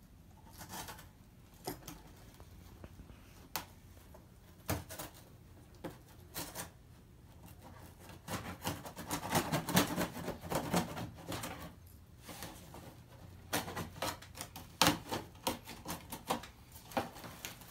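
Fingers picking and scratching at packing tape on a cardboard box: scattered clicks and scrapes, with a denser stretch of tearing and rustling about halfway through.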